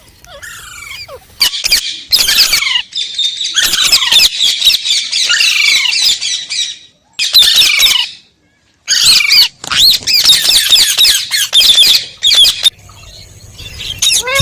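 Parrot screeching: loud, harsh calls repeated in runs, some sliding down in pitch, with two short breaks in the middle.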